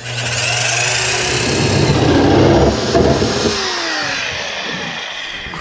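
Cordless drill with a step bit cutting an antenna hole through the sheet-steel trunk lid of a 1960 Chevy Impala: a steady motor hum under grinding and squealing as the bit bites into the metal, loudest in the middle and easing off near the end.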